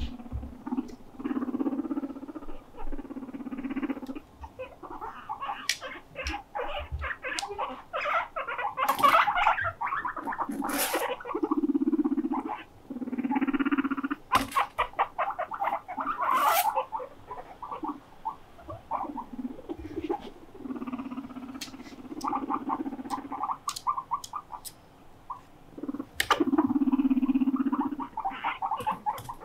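Guinea pigs vocalising: a string of low, buzzing rumbles about a second long each, with quick pulsing chatter and scattered clicks between them.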